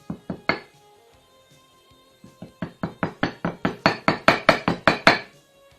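Rapid tapping, about five knocks a second, growing louder, as flour is knocked out into a mug. A few single taps come first. Background music plays underneath.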